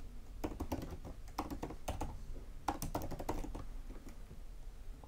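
Typing on a computer keyboard: quick, irregular runs of keystroke clicks, thinning out near the end.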